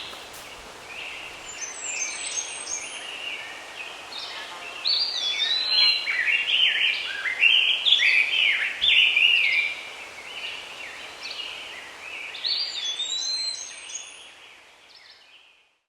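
Songbirds singing: a string of quick whistled, warbling phrases with rising and falling notes, loudest in the middle, fading out near the end.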